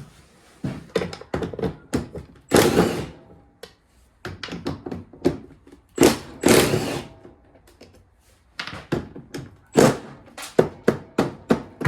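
A run of sharp knocks from ice being knocked off the snowblower's cover and frame, with two longer, louder scraping or rattling stretches of about a second each, and a quick string of knocks near the end.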